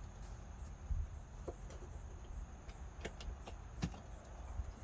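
A few faint, short clicks and knocks of plastic air-intake parts being handled and unclipped, over a low steady rumble.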